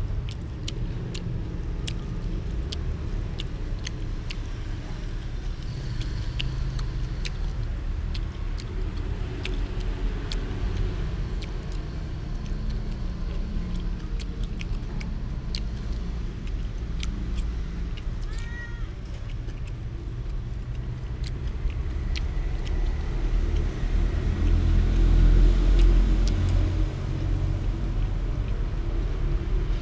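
Metal spoon clicking and scraping against a plastic plate of rice, over a steady low background rumble of road traffic that swells about three-quarters of the way through.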